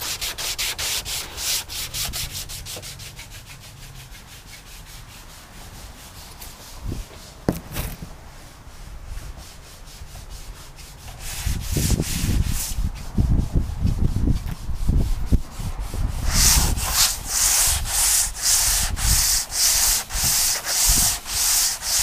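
Sandpaper on a hand sanding block rubbing down a car's painted body panels in quick back-and-forth rasping strokes. The strokes go quieter for a stretch in the middle, then come back louder and slower, about two a second, toward the end.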